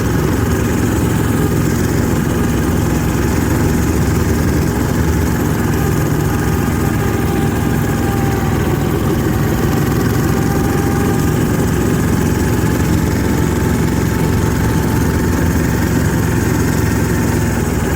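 Yanmar diesel engine of an Ockelbo diesel snowmobile running steadily as the sled travels along.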